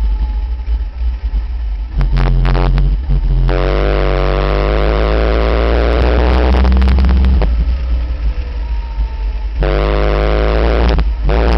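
Caterham Seven race car's engine heard onboard with wind buffeting the microphone: it eases off for the first two seconds, pulls hard on the throttle from about two seconds in, backs off again a little past halfway, then pulls again near the end.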